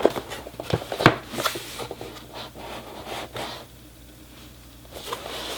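A keyboard's retail box being handled and turned: rubbing and scraping with scattered knocks, a sharp knock about a second in, then quieter handling before more rubbing near the end.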